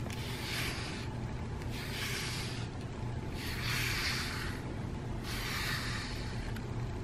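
Wire slicker brush raking through a cat's thick fur: four slow strokes, each a soft hissing rasp about a second long, over a steady low rumble.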